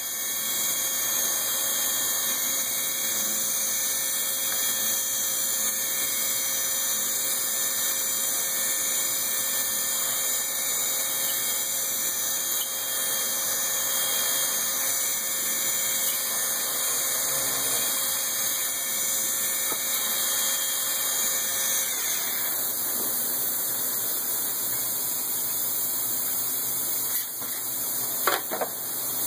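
Metalworking machine tool running steadily while Oldham couplings are machined: an even noise with a steady hum over it. The hum stops about three-quarters of the way through, and a few sharp clicks follow near the end.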